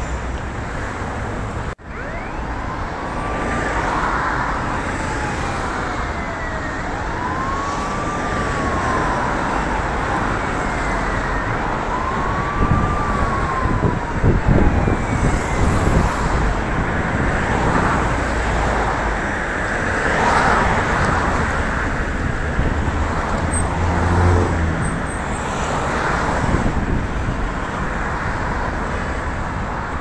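Steady city street traffic noise, with an emergency vehicle's siren wailing up and down three times in the first half.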